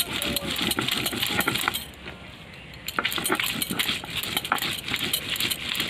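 Stone roller working back and forth on a wet sil-batta grinding stone, grinding leaves, garlic and chilli to a paste: quick repeated scraping strokes with stony clinks. The strokes pause briefly about two seconds in, then start again.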